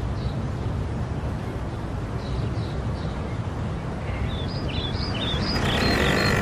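Street ambience: a steady low rumble of road traffic with birds chirping over it, including a quick run of chirps about four to five seconds in.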